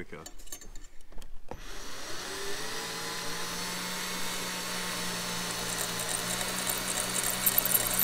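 Cordless drill spinning a piston ring gap grinder, starting about a second and a half in after a few handling clicks, winding up briefly and then running steadily. A high grinding hiss grows stronger in the second half as a piston ring's end is ground against the wheel to open up its gap.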